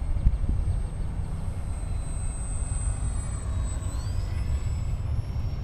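Wind buffeting the microphone, with the thin, high whine of a small radio-controlled airplane's motor overhead, rising in pitch about four seconds in as the throttle comes up.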